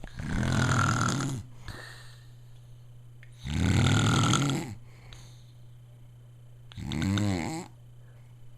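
A man snoring loudly: two long snores about three seconds apart, then a shorter one with a wavering pitch about seven seconds in.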